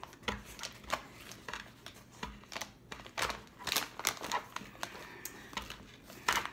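Foil-lined Grippo's chip bag crinkling as fingers work inside it breaking up a pickle: a run of short, irregular crackles, a few a second, with a louder crinkle near the end.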